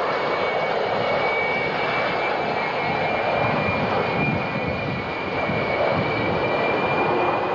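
Buran atmospheric test vehicle's four AL-31 turbofan jet engines running while it taxis: a steady jet rush with a high whine that rises slightly near the end.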